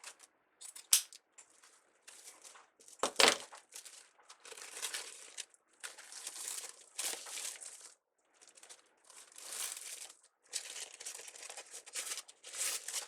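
Plastic deco mesh and wreath materials rustling and crinkling in irregular bursts as they are handled and scrunched, with a sharp click about a second in and a louder crackle about three seconds in.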